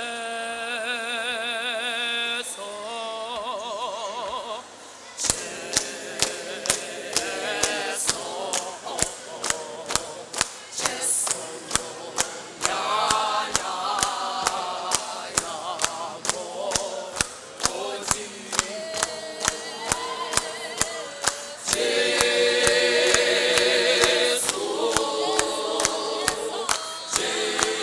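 South African clap-and-tap gospel choir singing a cappella in harmony. A single voice with a wide vibrato opens. About five seconds in, the full choir joins over steady hand-clapping, about two claps a second.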